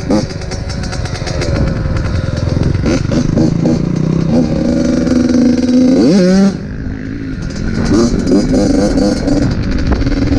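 Dirt bike engines running and revving, with several rising sweeps in pitch as the throttle opens. The sound changes abruptly about six seconds in.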